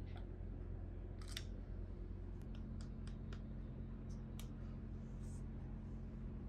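Small toy pieces and packaging being handled: a brief crinkle about a second in, then scattered light clicks, over a steady low hum.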